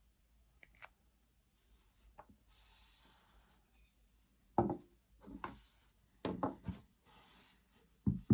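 Metal mortar-round parts being handled and set down on a wooden tabletop: faint rubbing, then a few knocks about halfway through, a quick cluster of them a little later, and more near the end.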